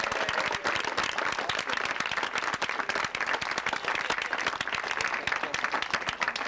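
A crowd applauding: many hands clapping at once, a dense, steady patter.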